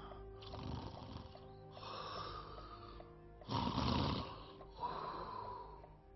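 A man snoring heavily: about four snores in a row, each a second or so long with short breaths between, over soft background music.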